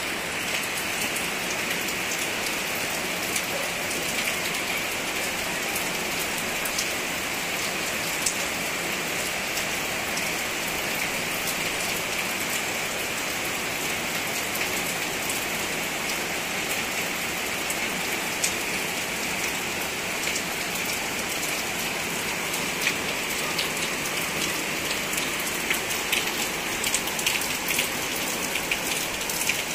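Steady rain falling on broad banana leaves and palm fronds: a constant hiss dotted with many sharp drop taps, which come more thickly near the end.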